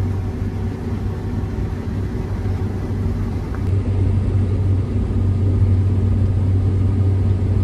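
Combine harvester running steadily under load while harvesting, heard from inside its cab: a continuous engine and machinery drone with a strong low hum.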